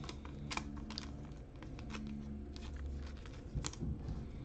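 Quiet, scattered clicks and soft slaps of glossy foil basketball trading cards being flipped through and shuffled by hand, over a low steady hum.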